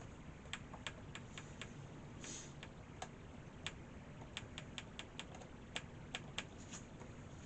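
Faint, irregular clicking of computer keyboard keys being typed, a few strokes a second, over a low steady hum, with a brief soft hiss about two seconds in.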